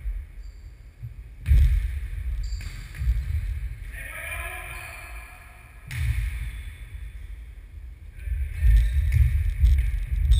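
Football tennis ball being kicked and bouncing on a wooden sports-hall floor, dull thumps echoing around the hall at irregular intervals. A short call from a voice comes about four seconds in.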